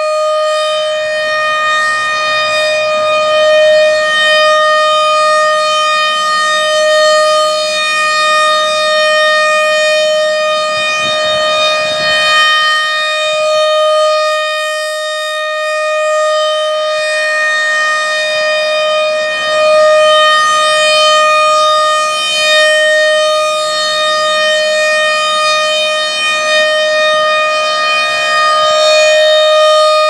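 American Signal RM-130 rotating outdoor warning siren sounding a steady alert tone at one unchanging pitch for a tornado-siren test, swelling and fading slowly as its horn turns toward and away.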